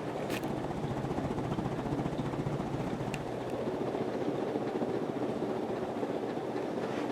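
Emerson Designer ceiling fan with plastic blades running at high speed: a steady rushing whoosh of air from the fast-spinning blades, with a rapid even pulse and a faint tick twice.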